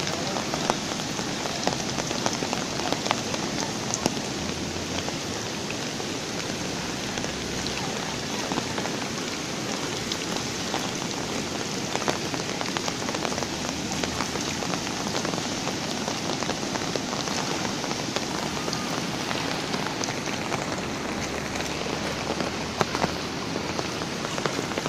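Heavy rain falling steadily, with scattered sharp drop taps close by, over the rush of a swollen flooding river.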